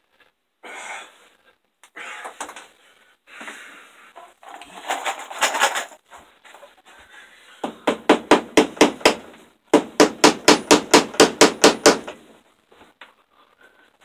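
Hammer driving cable staples over electrical cable into a wooden door frame: quieter rustling first, then two quick runs of sharp taps, about nine and then about twelve, at around five a second.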